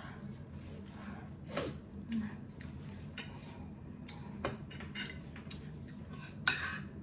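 Close-miked mukbang eating sounds of spicy instant noodles: chewing and wet mouth clicks, a fork and spoon tapping a plate, a short hum about one and a half seconds in and a louder breath near the end.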